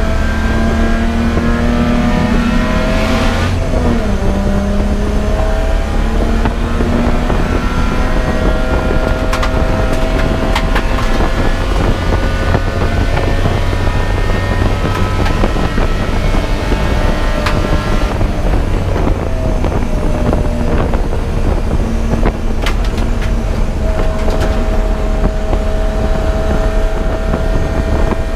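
Race car engine running hard at high revs, its pitch climbing slowly and dropping sharply twice, with a few scattered knocks.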